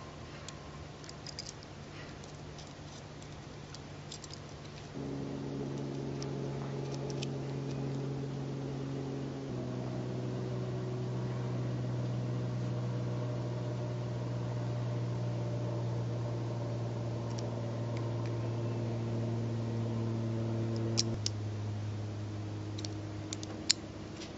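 Sustained held chords that shift to new notes every several seconds, like a slow background music pad. A few light metallic clicks sound over it, mostly in the first few seconds and near the end.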